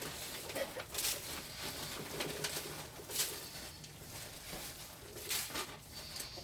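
Handfuls of dry pine shavings tossed from a bucket onto a coop floor, a brief swishing scatter about every two seconds, with chickens making soft calls underneath.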